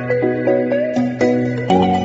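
Background music: short pitched notes at a steady beat of about four a second over a bass line that changes every second or so.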